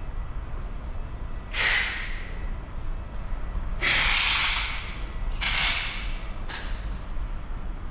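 Four short bursts of hissing over a steady low rumble: the first about a second and a half in, the longest and loudest about four seconds in, then two shorter ones close together.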